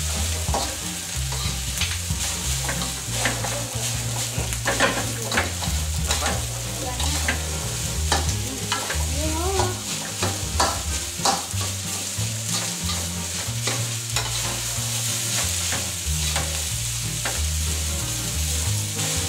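Fried rice sizzling in a hot steel wok while a metal spatula scrapes and knocks against the pan, tossing and spreading the rice, with many irregular clanks over a steady sizzle.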